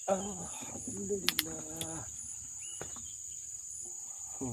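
Steady high-pitched insect chorus. A man's voice sounds during the first two seconds and again near the end, with two sharp clicks about a second and a half in.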